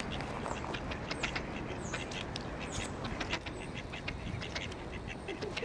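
Mallard ducks on the ice giving many short, sharp calls in quick succession.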